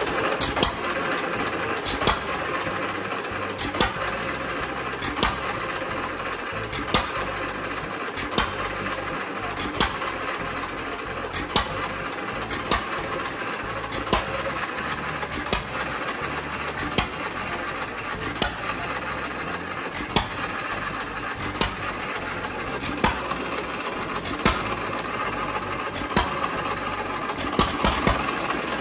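1923 Fairbanks Morse 1½ hp single-cylinder hit-and-miss engine running warm after a hand start: a sharp firing stroke about every one and a half seconds, with the engine's steady clatter as it coasts between firings.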